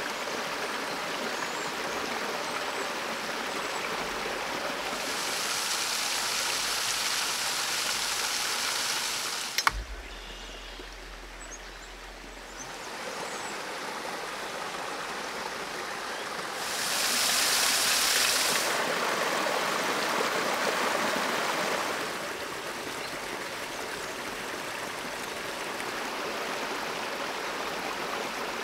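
Small forest stream running over rocks, a steady rush of water. A sharp click comes about ten seconds in, the water is quieter for a few seconds after it, and it grows louder and brighter for a few seconds past the middle.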